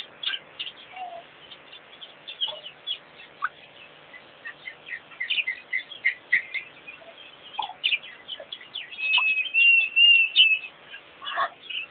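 Wild songbirds chirping, many short high notes overlapping, with a louder held whistled note lasting about a second and a half near the end.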